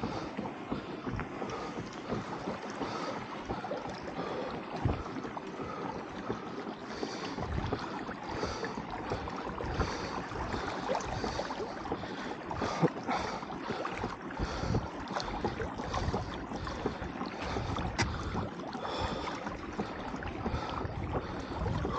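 Lake water splashing and rushing along the hull of a Hobie fishing kayak under way, with irregular soft slaps of water against the hull and wind buffeting the microphone.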